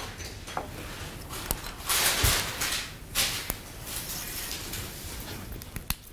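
Handling noises from threading an overlock sewing machine: small clicks of metal tweezers against the needle area, with two short rustling scrapes of thread and fingers about two and three seconds in.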